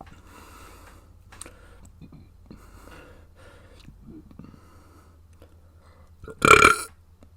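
A person burps once, loudly, about six and a half seconds in, after a few seconds of quieter breathy sounds.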